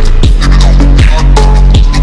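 Slowed-down, reverb-heavy phonk music: a heavy sustained bass, a kick drum about twice a second, and short bell-like melody notes.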